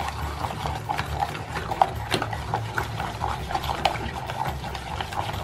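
Metal spoon stirring thick pancake-style batter in a stainless steel saucepan: repeated scrapes and clinks against the pan, a few each second.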